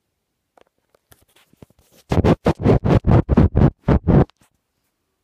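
Loud, close scratching or rubbing against the recording device's microphone: about nine quick strokes in a little over two seconds, after a few faint clicks.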